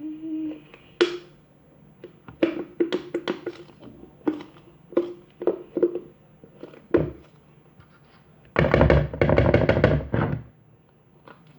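Plastic glue bottle knocked against a bowl to empty it: a string of sharp hollow thunks, then a rapid two-second run of knocking near the end.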